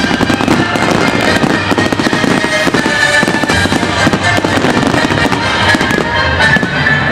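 Fireworks display: a rapid, unbroken run of bangs and crackles from bursting shells, over music playing with the show.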